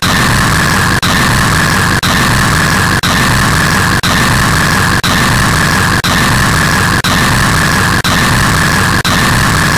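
Very loud, harsh static-like white noise covering every pitch, with a brighter hiss in the upper middle. It drops out briefly once every second, like a one-second loop repeating.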